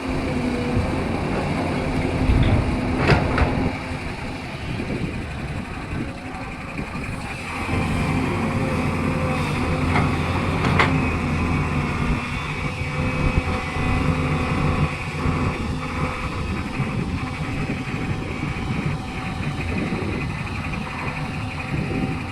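SANY SY210C-9 excavator's diesel engine running under load while mud is loaded, its level dropping a few seconds in and rising again, with a sharp clank about 3 seconds in and another near 11 seconds.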